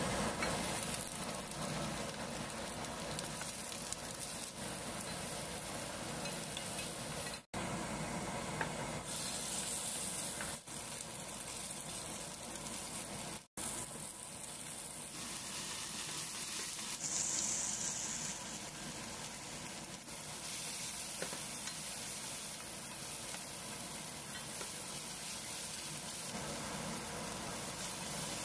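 Oil sizzling steadily in a nonstick frying pan as ginger slices, then walleye pieces, then green pepper and green onion fry on medium heat and are stirred with a wooden spatula. The sizzle drops out for an instant twice.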